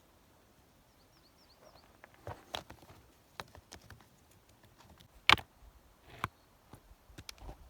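Scattered knocks and clicks, with one sharp, much louder knock about five seconds in, and a few faint high chirps about a second in.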